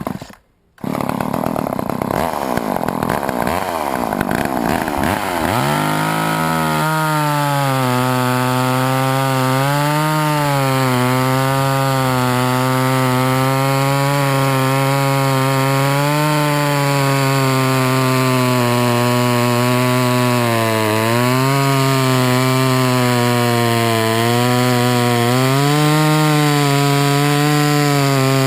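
1988 Poulan 2000 two-stroke chainsaw running at high speed. It cuts in abruptly about a second in and falls in pitch over the first few seconds, then holds a steady high speed with brief dips in pitch every five seconds or so as it bogs slightly under the cut.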